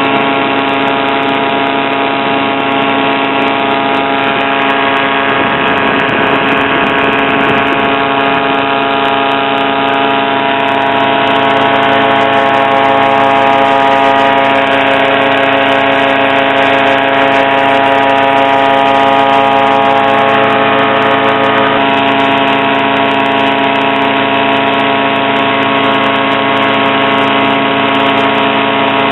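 HM-1000 Balerit ultralight aircraft engine running steadily at an even pitch, getting slightly louder for a while partway through.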